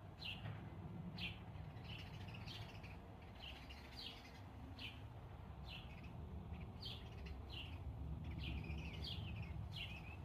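Small garden songbirds chirping: short, falling chirps repeated a little faster than once a second, over a low steady rumble.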